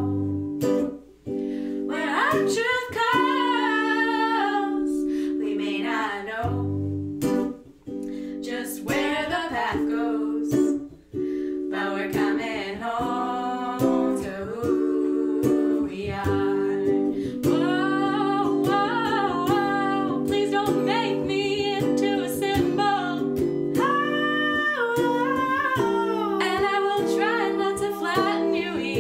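A song with a singing voice over plucked acoustic string accompaniment, with short breaks between phrases.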